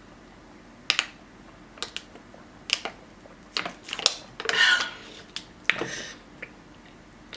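Close-miked eating sounds: a string of sharp mouth smacks and clicks about once a second, with a short rustling, crunching burst a little past the middle.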